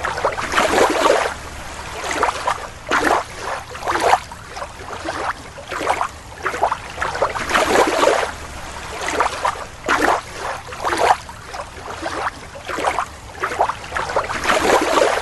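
Water sloshing and splashing in an aquarium as a toy blue whale is swished through it by hand, in repeated surges about once a second.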